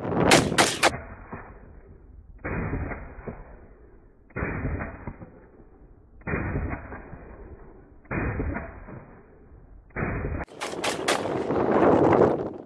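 AR-15 rifle shots. A quick string of three sharp shots opens it. Then come five single shots slowed down, each a deep, drawn-out boom with a long fading tail, about two seconds apart, and near the end another quick string of shots at full speed.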